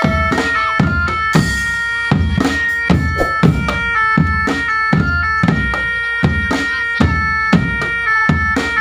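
Marching drum band playing a tune: a reedy, sustained wind melody over bass drum and snare keeping a steady beat of about two strokes a second.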